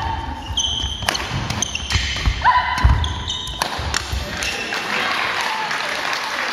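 Badminton rally on a wooden sports-hall floor: sharp racket strikes on the shuttlecock, shoe squeaks and footfalls. The strikes and squeaks stop about four seconds in as a player lunges to the floor, and clapping and voices follow.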